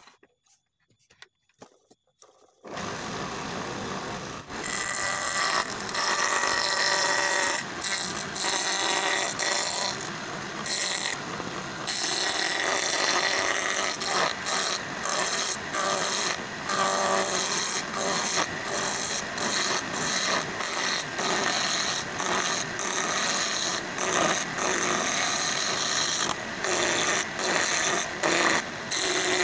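Wood turning: a hand chisel cuts into a wooden table-leg blank spinning on a motor-driven lathe, making a loud, steady scraping that breaks off briefly again and again as the tool lifts and bites. Near silence comes first, and the cutting noise starts abruptly about three seconds in.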